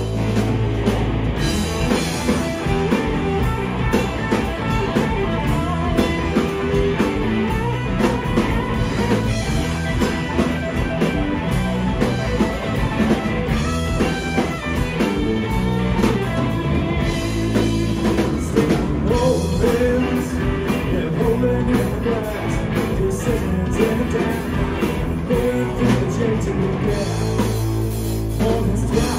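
Heavy rock band playing live: two electric guitars through Marshall amplifiers, bass guitar and a drum kit in a steady, loud instrumental jam.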